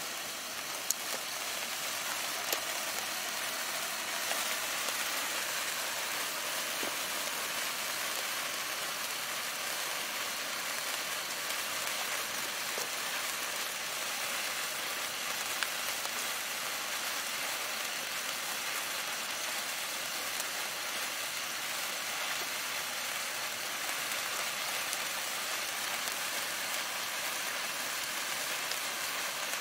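Gold wood-stick sparklers burning with a steady fizzing crackle, growing fuller over the first few seconds, with a few sharper snaps standing out.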